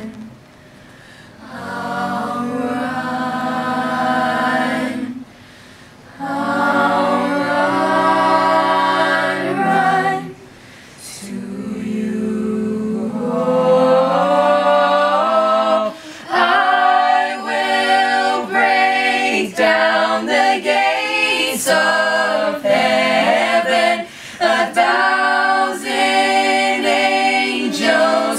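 Small mixed group of young male and female voices singing a cappella in harmony. Held chords are broken by short pauses, then about halfway through the singing turns faster and choppier, with short rhythmic phrases.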